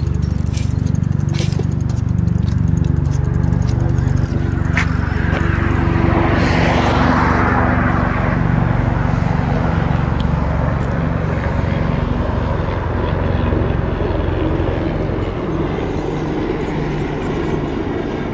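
Steady rumble of a bicycle rolling over pavement, with wind on the microphone. A car passes, its road noise swelling and fading about six to nine seconds in.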